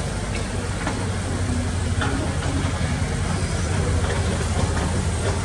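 Heavy diesel engine of earthmoving machinery running steadily with a deep hum, with a few faint knocks.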